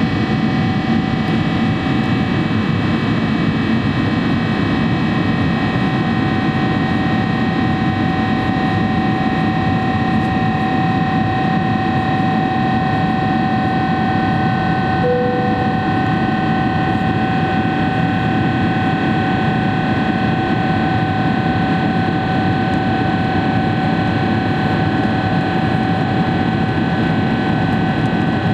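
Cabin noise of a Boeing 777-300ER climbing after takeoff, heard from a window seat beside its GE90-115B engine. A steady rush of engine and airflow noise carries a steady whine from the engine on top. A brief lower tone sounds about halfway through.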